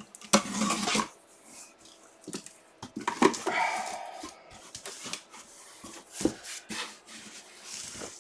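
Cardboard box being opened by hand: flaps scraping, rustling and tapping in short knocks. A dog whimpers briefly about three and a half seconds in.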